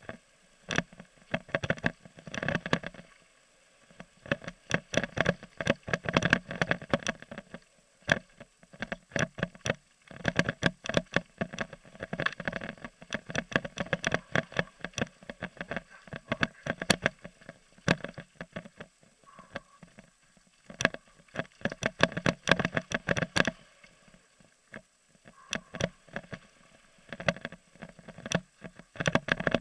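Downhill mountain bike clattering over a rough dirt trail: dense runs of rapid knocks and rattles from the bike's chain, frame and suspension, with a few short smoother stretches between.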